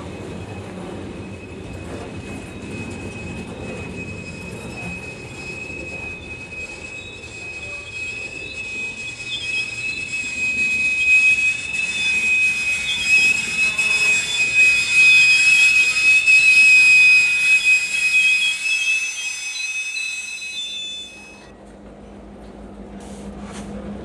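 Freight cars of a Norfolk Southern train rolling past close by, the wheels squealing on the rail with a steady high-pitched squeal over a low rumble. The squeal grows louder about a third of the way in and cuts off sharply near the end, leaving a quieter low rumble of the train.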